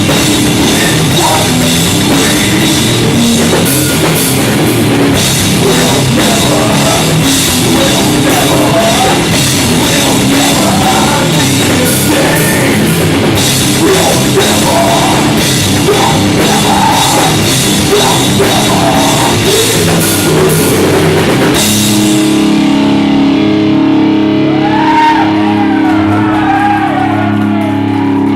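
Live rock band playing loud: drum kit with cymbals, electric guitars and bass. About two-thirds of the way through, the drums and cymbals stop and the guitars hold a ringing chord under a bending lead line as the song closes.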